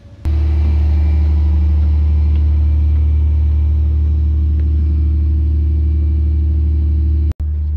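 Steady low drone of a river passenger ship's engine on the open deck, starting abruptly just after the start and cutting out for an instant near the end.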